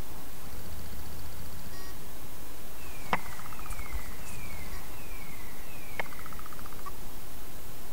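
Steady hiss of recording noise, with two sharp clicks about three seconds apart. Between the clicks come five faint, evenly spaced descending chirps, each trailed by a short pulsing trill.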